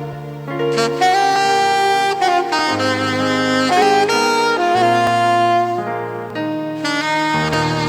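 Saxophone playing a melody of held notes over sustained lower backing chords.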